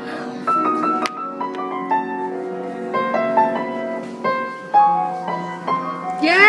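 Piano played by an amateur, picking out a slow melody of single notes over held lower notes, a few notes a second with a brief pause in the middle.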